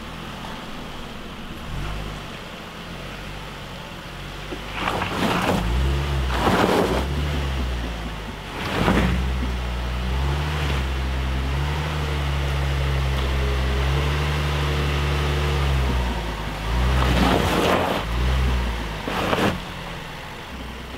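Range Rover Velar's engine revving in uneven surges as the SUV crawls over deep ruts, the revs held up for several seconds in the middle. Several short rushes of tyre and gravel noise break in over it.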